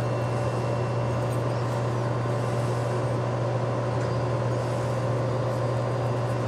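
Steady low machine hum with fainter higher steady tones over it, unchanging throughout.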